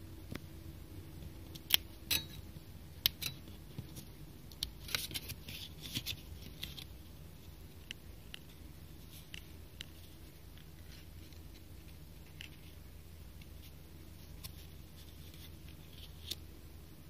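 Fingers handling a sheet of stickers on a table, making scattered sharp clicks and scratchy ticks. They are busiest in the first several seconds and sparse after.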